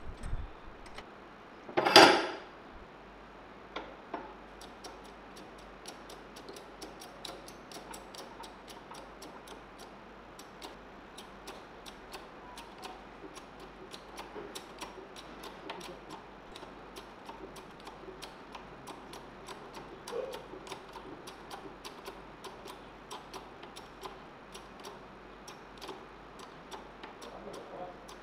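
A homemade steel spring-compressor press being worked with a shock absorber's coil spring in it: one sharp metal clank about two seconds in, then steady light metallic ticking and clicking, with a few small knocks.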